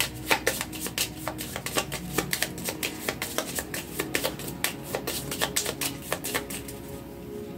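A deck of divination cards being shuffled by hand: a quick, irregular run of small card clicks and slaps that thins out about six and a half seconds in. Soft background music holds underneath.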